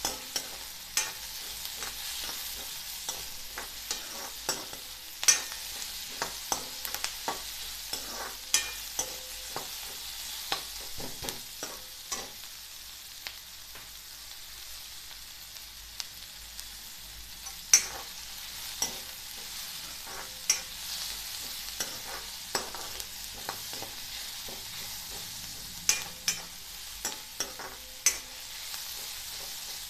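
Sliced onions frying with a steady sizzle in a little hot oil in a kadhai, being sautéed until pink. A steel ladle stirs them, giving sharp scrapes and taps against the pan every few seconds.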